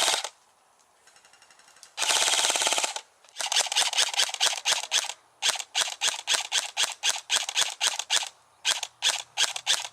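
Airsoft rifle firing: a full-auto burst of about a second, two seconds in, then a long string of rapid single shots at about five a second, with a brief pause near the end.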